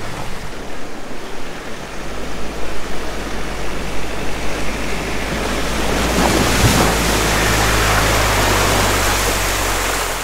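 Ford Ranger Raptor's diesel engine running steadily as the truck drives through a shallow creek crossing, over rushing, splashing water. The engine and the water both grow louder in the second half as the truck pushes through close by.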